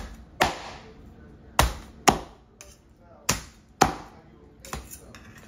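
Heavy cleaver chopping through smoked jerk chicken pieces, bone and all, onto a plastic cutting board: about seven sharp chops, mostly in pairs about half a second apart.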